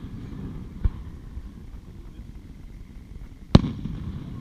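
Aerial fireworks shells bursting: a smaller boom about a second in and a loud, sharp bang near the end, each trailing off in a rumbling echo.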